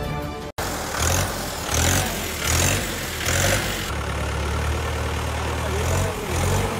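Farm tractor's diesel engine running as the tractor drives through flooded paddy mud. The sound swells and fades about once a second for the first few seconds, then runs steadier.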